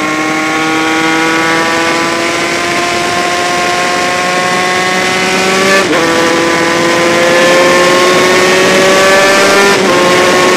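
Honda RS125 single-cylinder two-stroke racing engine heard from on board, pulling hard with its pitch climbing steadily. It shifts up a gear about halfway through and again near the end, each time with a brief break and a slight drop in pitch.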